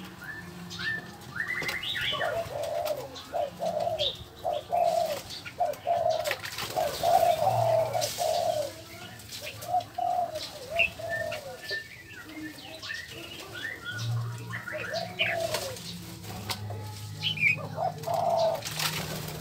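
Birds calling in an aviary: a long run of short, repeated low calls, thickest in the first half and again near the end, with scattered higher chirps over them.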